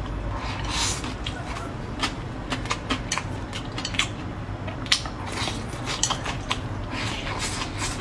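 Chewing and crunching on spicy shredded papaya, with irregular sharp clicks of wooden chopsticks against a plate.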